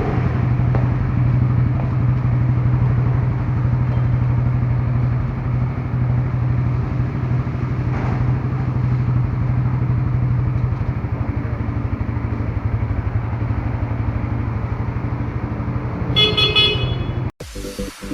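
Suzuki GSX-S150 motorcycle's single-cylinder engine running steadily. A horn honks briefly about sixteen seconds in, and the engine sound then cuts off suddenly into electronic music.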